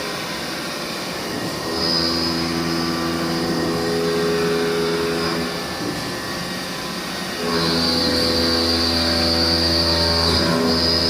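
CNC machine running: a steady motor hum with a high whine that drops away for a couple of seconds and comes back twice, as the machine works through its moves.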